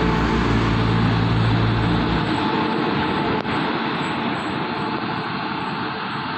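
Diesel multiple-unit passenger train pulling out past the platform: a steady engine drone with wheel and rail noise, the engine note dropping away about two seconds in as the last car goes by, leaving a rushing rail noise that slowly fades as the train pulls away. One sharp click about three and a half seconds in.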